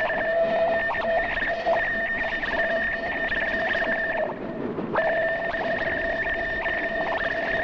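Steam locomotive whistle from a ČSD class 498.0 'Albatros' express engine: a long steady blast that breaks off about four seconds in, then sounds again a moment later and holds.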